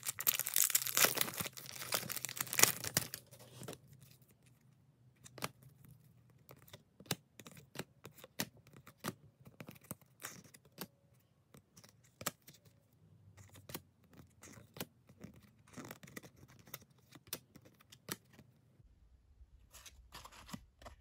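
A trading-card pack wrapper is torn open, dense and crinkly for about the first three seconds. Then comes a quiet run of sharp, irregular clicks as the cardboard cards are flicked and slid one behind another.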